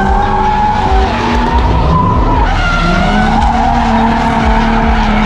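Drift car on the track at high revs, its engine note held and then climbing about halfway through, with tires squealing as it slides.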